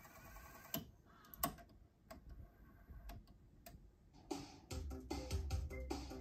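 Sony DTC-59ES DAT deck winding its tape back with a faint whir, then several sharp mechanical clicks as the transport stops and switches to play. Music from the tape starts playing about four and a half seconds in.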